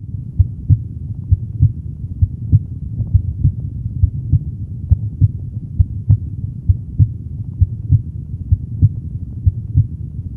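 Human heart sounds heard through a stethoscope at the aortic area, the second intercostal space right of the sternum: regular pairs of low thuds, the first and second heart tones, over a steady low hum.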